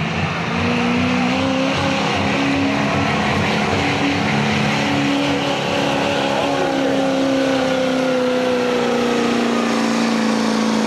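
Lifted Chevrolet Silverado's diesel engine running hard at high revs while pulling a weighted sled. The note is held steady and then sinks slowly in pitch through the second half.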